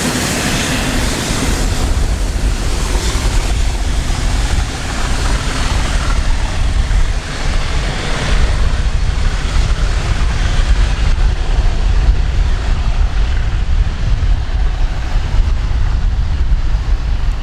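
Rail-head treatment train hauled by Class 37 diesel locomotives pulling away, its engine and wheel noise fading over the first several seconds. Heavy low wind buffeting on the microphone runs underneath and is the loudest sound once the train has gone.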